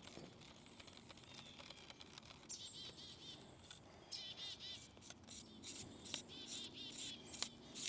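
Faint birdsong: a small bird's quick runs of repeated high chirps, over quiet outdoor ambience, with a few faint clicks.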